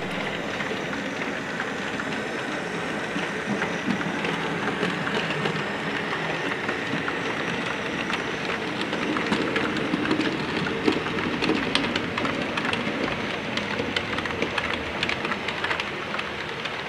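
Model railway train, a steam locomotive with a rake of coaches, running past on the track: a steady rumble with a dense patter of fine clicks from the wheels over the rails and rail joints.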